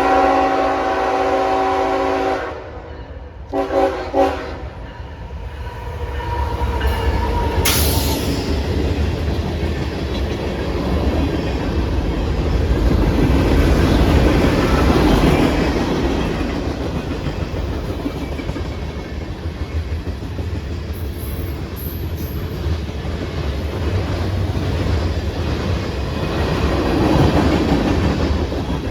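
Train horn sounding a long chord of several steady tones, then two short blasts about a second later, followed by the train rolling past with a steady rumble and wheel clatter.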